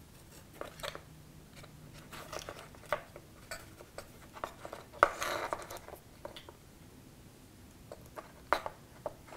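Twine and cardstock being handled while a double knot is tied around the brads of a paper craft arrow: scattered light rustles and small clicks, with a louder rustle about five seconds in.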